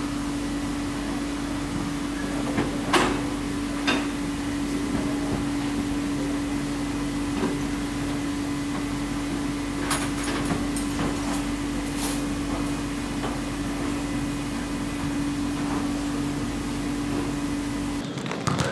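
Steady machine hum over a hiss, like ventilation or refrigeration running in a canteen, with a few sharp knocks and clinks: one about three seconds in, another a second later, and several around ten to twelve seconds in. The hum cuts off suddenly near the end.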